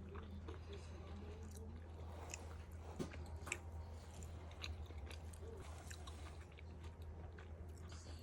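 A person chewing and biting food close to the microphone, with scattered short wet mouth clicks over a steady low hum.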